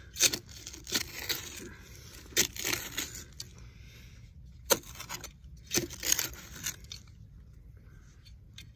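Small high-carbon-steel shovel blade digging sandy soil: about half a dozen sharp stabs and gritty scrapes as the blade is driven in and dirt is scooped out. The strokes stop about two-thirds of the way through.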